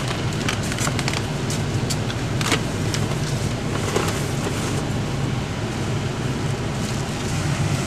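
A car running with a steady low rumble of engine and road noise, with scattered light clicks and knocks.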